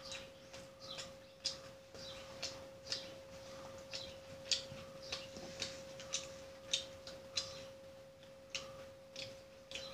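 Close-up eating sounds: wet chewing and mouth smacks of someone eating rice and curry, sharp and irregular, about one or two a second. A steady faint tone hums underneath.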